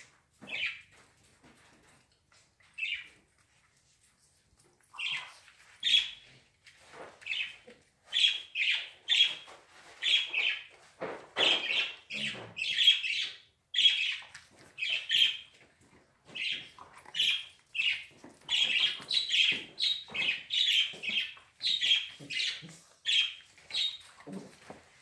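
Squeaky dog toy being chewed, squeaking over and over: a few scattered squeaks at first, then a quick run of about two squeaks a second through most of the rest.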